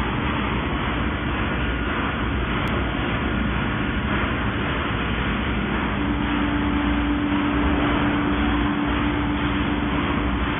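Steady din of running factory machinery, with a low hum that comes in about six seconds in and holds for several seconds.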